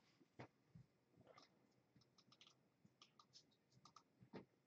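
Near silence with faint, scattered clicks and two soft taps from trading cards being handled on a playmat.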